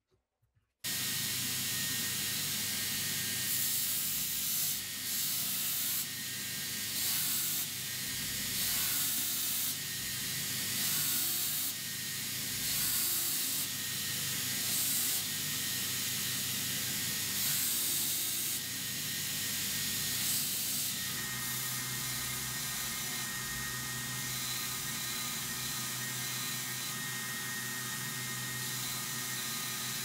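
Belt grinder running as a high-carbon steel knife blade is ground against the abrasive belt to cut its bevels, a steady grinding hiss over the motor hum. The grinding swells and eases in passes about every two seconds, then runs more evenly through the last third.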